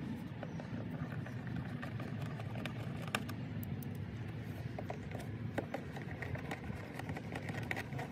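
Hand screwdriver driving screws into an ATV's plastic front body panel: scattered light clicks and ticks over a steady low background rumble.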